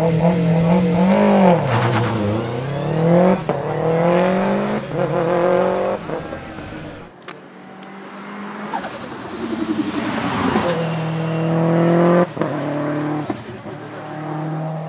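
Subaru Impreza WRX STI's turbocharged flat-four boxer engine pulling hard, its revs climbing and then dropping at each upshift. After a sudden drop about seven seconds in, a second run of rising revs and shifts follows.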